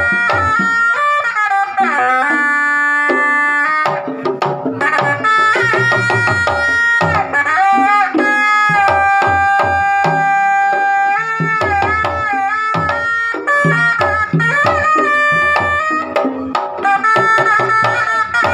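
Sundanese pencak silat music: kendang hand drums beating a busy, driving pattern under a reedy tarompet playing a wavering melody with long held notes.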